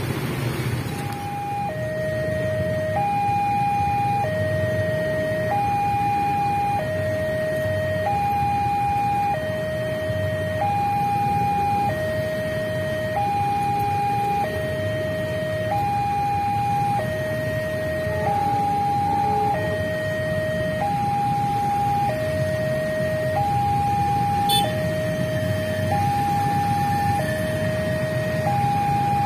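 Railway level-crossing warning alarm sounding its electronic two-tone signal, a higher and a lower tone alternating evenly, one full cycle about every two and a half seconds. It starts about a second in and warns that a train is approaching. A steady low rumble of idling motorcycles and cars waiting at the crossing runs underneath.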